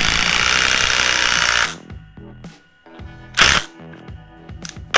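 Cordless impact driver hammering a long screw in for about two seconds, then a brief second burst of hammering about three and a half seconds in, with music underneath.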